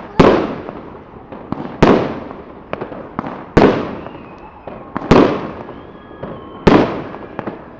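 Aerial fireworks bursting: five loud bangs about a second and a half apart, each trailing off in a long echo, with smaller crackles in between.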